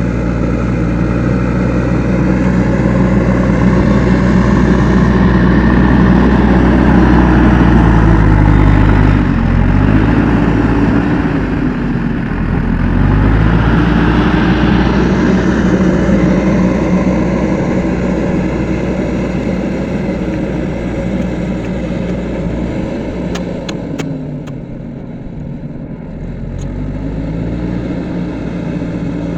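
JCB 3DX backhoe loader's diesel engine running under working load; its speed dips and recovers twice around ten and thirteen seconds in, then eases down shortly before the end and climbs back up.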